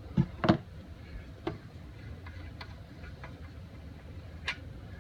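A handful of short, sharp clicks and taps from screws and a hand tool being handled while the side-cover screws come off a lathe headstock. The two loudest are in the first second, with fainter ones spaced out after.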